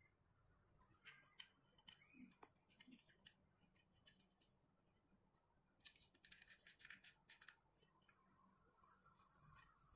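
Faint hand-fitting noise: a small wooden block, thin metal pin and dowel clicking and scraping as they are pushed into a wooden slingshot stock, with a quick run of clicks about six seconds in.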